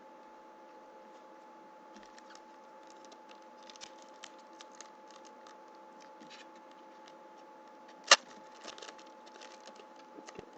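Foil wrapper of a Pinnacle hockey card pack crinkling and crackling as it is torn open by hand. There is one sharp loud snap a little after 8 seconds in.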